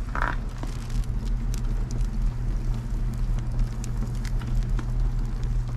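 Outdoor wood boiler with its firebox open: a steady low mechanical hum from the boiler, with scattered sharp snaps and crackles from the split logs burning inside.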